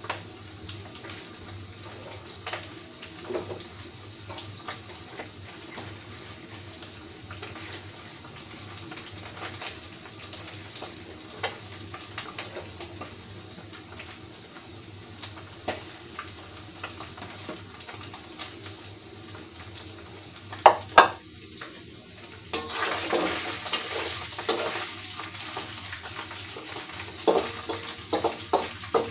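Kitchen work with pots and utensils: scattered clinks and knocks, two loud clacks about three-quarters of the way through, then a steady rushing hiss that sets in shortly after and carries on with more clinks.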